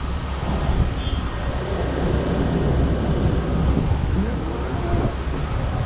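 Case excavator's diesel engine running steadily as the machine moves along the trailer deck during loading.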